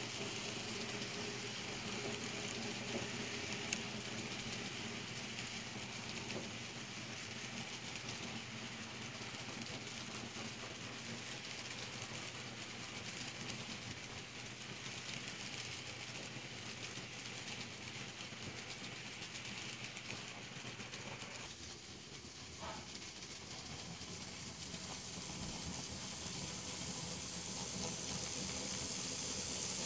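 N scale model trains running on the track: a steady hiss and whir of small wheels and motors. The sound dips briefly about two-thirds of the way through, then grows louder near the end.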